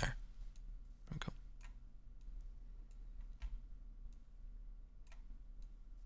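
Faint, scattered clicks of a computer mouse, about a dozen at uneven intervals over a low hum, with one louder click about a second in.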